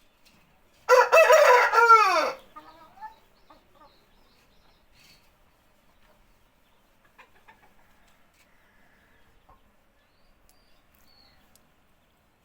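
Aseel rooster crowing once, a single call of about a second and a half that falls in pitch at its end, about a second in.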